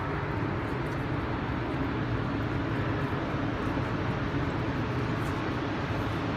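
Steady low rumble of a metro station, with no distinct events or changes.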